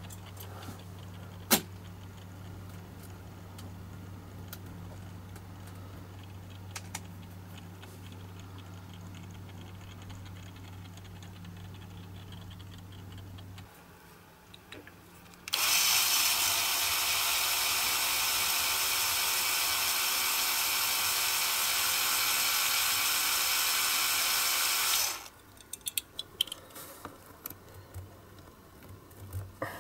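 Small electric drill running steadily for about ten seconds, drilling out the rivet of a die-cast metal model's base, then stopping abruptly. It is followed by small clicks and taps of metal parts being handled, and comes after a quieter steady low hum.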